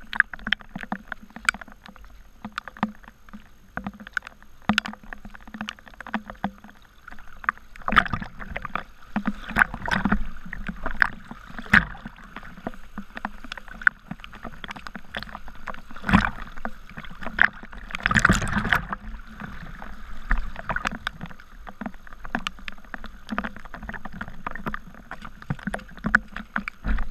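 Muddy storm runoff rushing across the ground and splashing close to the microphone, with many irregular sharp splashes, heavier about a third of the way in and again past the middle.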